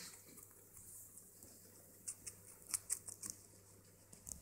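A raw carrot being gnawed by a pet rabbit and guinea pig: faint, crisp crunching bites, most of them in a quick run about two to three seconds in.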